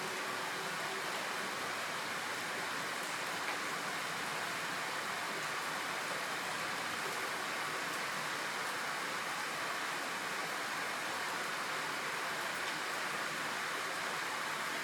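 Steady rain falling, an even hiss of drops with no let-up. A faint hum fades out about a second in.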